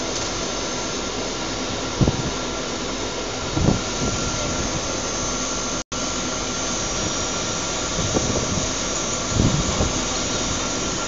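Steady noise of running waste-processing machinery, with a faint steady whine and a few short low thumps. The sound cuts out for an instant about six seconds in.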